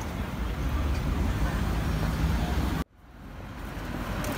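Steady road-traffic rumble of a city street. It cuts out abruptly about three seconds in and fades back up.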